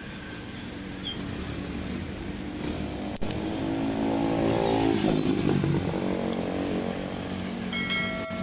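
A motor vehicle's engine passing by in the background, growing louder toward the middle and then easing off. Near the end a short bell-like chime rings.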